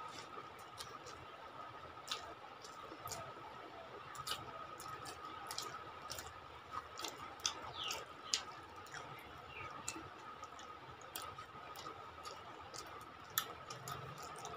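Soft, scattered wet clicks and squishes of people eating rice and curry with their fingers: chewing, lip smacks and fingers squeezing rice, over a faint steady high-pitched tone.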